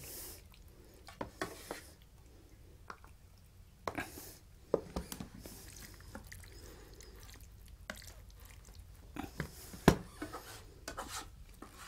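A spatula scooping and scraping thick pasta curry out of a frying pan into a plastic container: scattered soft scrapes and wet squelches with a few light knocks, the sharpest near the end.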